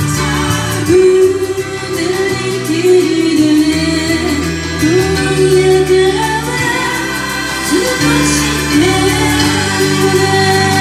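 A woman singing into a microphone over backing music, holding long, wavering notes.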